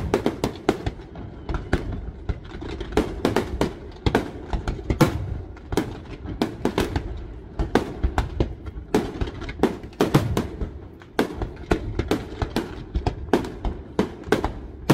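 Parente Fireworks' display of aerial shells and low comets going off, many sharp bangs a second in quick, irregular succession over a continuous low rumble.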